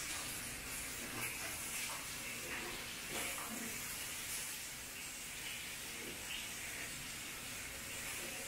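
Fish frying in a pan of hot oil, sizzling steadily, with a few light taps of a metal utensil against the pan.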